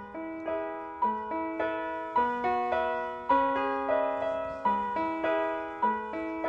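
Background music: a gentle piano melody, notes struck about twice a second and left to ring and fade.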